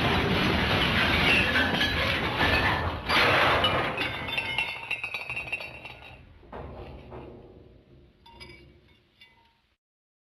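The 'MGM Elephant Smash' cartoon crash sound effect: a long, dense smash with breaking glass, a second crash about three seconds in, then clinking debris that dies away and stops just before the end.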